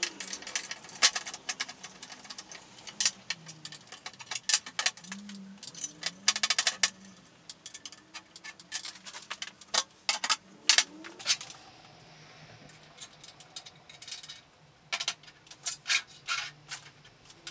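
Irregular metallic clinks and clicks of a hex key, steel socket-head bolts and machined aluminium jig parts knocking together as the parts are fitted and bolted up.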